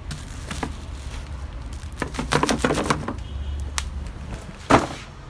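Bubble-wrapped package being handled: crinkling and crackling of the plastic wrap, with a dense run of crackles around the middle. A single loud thump comes near the end.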